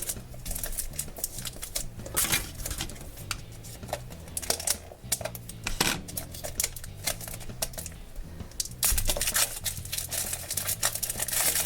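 Hands handling and opening a small toy package: a run of irregular clicks, taps and rustles, busier and louder near the end.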